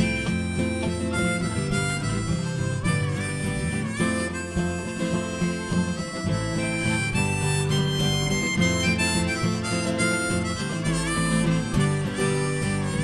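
Harmonica solo, played from a neck rack, with held and bent notes over a live acoustic band with strummed acoustic guitar, mandolin and electric guitar.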